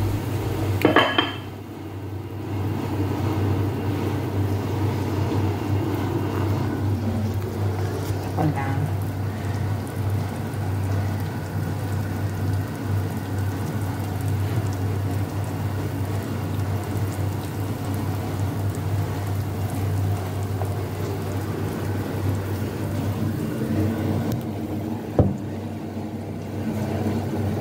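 A pot of whole chicken boiling in water on a gas burner: a steady rushing hiss over a constant low hum. There is a brief clatter of the pot lid about a second in and a sharp knock near the end.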